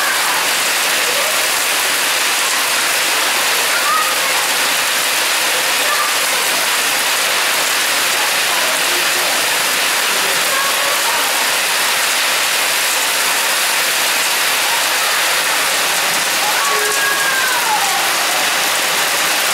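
Torrential hail mixed with rain pelting the ground and roofs, making a dense, steady hiss that holds at one level throughout.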